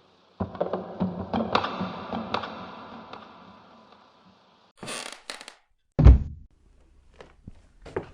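Wooden creaking and knocking in a quick run of clicks that ring out and fade, then a brief hissing scrape about five seconds in. A single heavy wooden thud follows, the loudest sound.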